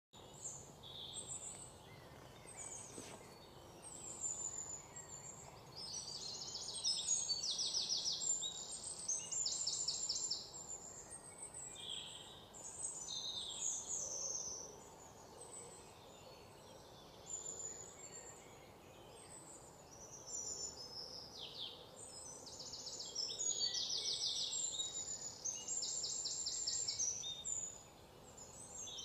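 Birds chirping and singing quick high trills, over and over in bouts that come and go, above a faint steady outdoor hiss.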